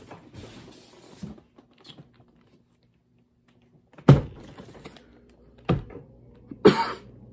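A heavy cardboard case of fireworks shells being handled and lifted: faint cardboard rustling at first, then a loud thud about four seconds in and two more knocks near the end.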